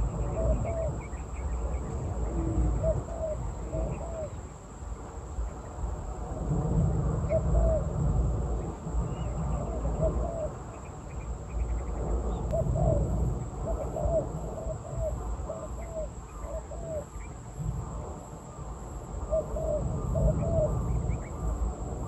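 Spotted doves (turtledoves) cooing: short phrases of several low notes, repeated again and again, over a steady high insect drone and a low rumble.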